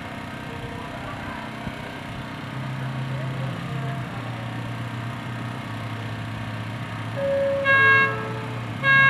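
Horn of a miniature ride-on park train giving two short toots about a second apart near the end, over a steady low hum.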